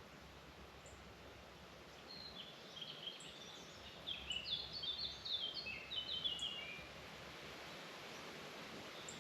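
A songbird singing one long, rapid song of many short high notes, starting about two seconds in and ending about five seconds later, over faint steady forest background hiss.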